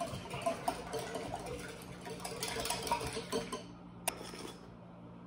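Wire hand whisk beating eggs in a glass measuring jug: quick, irregular clicking and scraping of the wires against the glass, which stops about three and a half seconds in, followed by a single sharp click.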